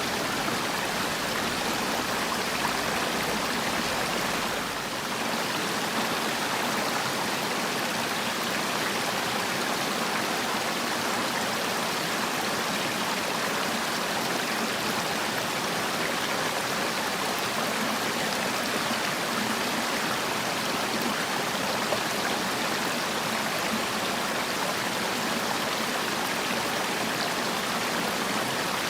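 Mountain stream water rushing and splashing over rocks, a steady continuous flow.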